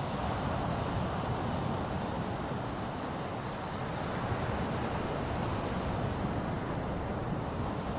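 Ocean surf: waves washing in as a steady, even rush of noise that swells and eases slightly.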